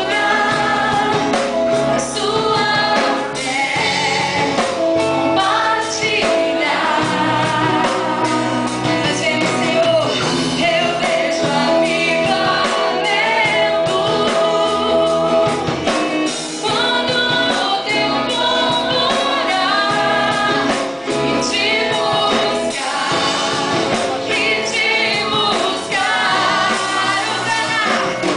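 Live band playing a song, with a woman singing lead into a microphone over keyboard, guitars and drums; her line includes several long held notes.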